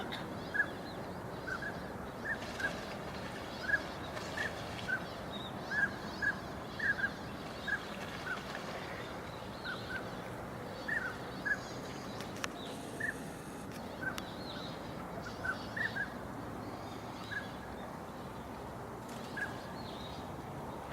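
A flock of winter birds calling: many short, similar calls, a few each second at irregular spacing, over a steady background hiss.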